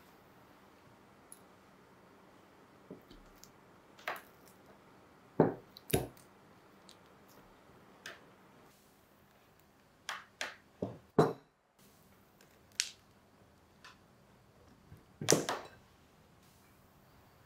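Silicone spatula pressing and scraping soft cream cheese against a glass bowl: irregular knocks and scrapes with quiet between, the loudest about five, eleven and fifteen seconds in.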